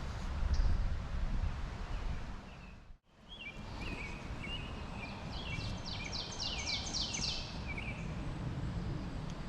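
Steady rush of flowing stream water, with a low rumble in the first second. After a brief dropout about three seconds in, a songbird sings: chirps and then a quick run of about eight high, falling notes.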